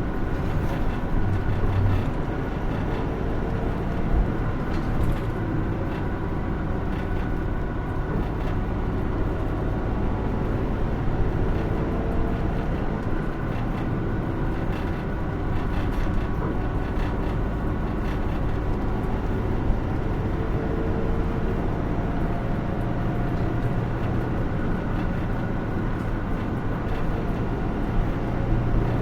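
Cabin sound of a Hino Rainbow II diesel route bus under way: a steady engine drone with a low rumble of road noise. The engine note swells a little near the end.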